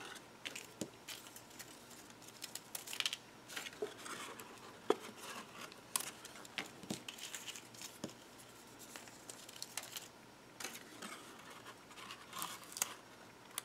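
Faint paper handling: adhesive dots taken from their backing and pressed onto the corners of a patterned-paper box, with scattered small clicks, taps and rustles at an uneven pace.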